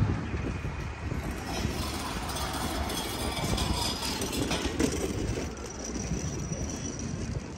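A road vehicle or tram passing: a steady traffic rumble, with a faint high whine in the second half.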